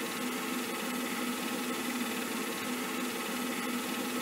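Jeep engine idling, a steady even hum.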